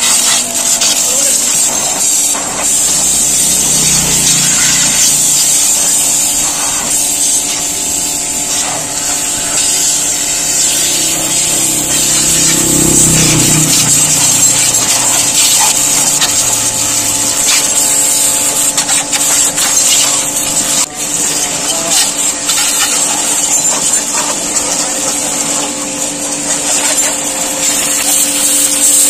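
Pressure washer running steadily, its very high-pressure water jet hissing loudly as it sprays a motorcycle's wheels and underside, over a faint steady hum.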